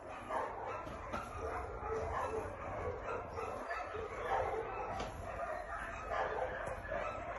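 Many dogs barking and yelping at once in the background, an unbroken chorus.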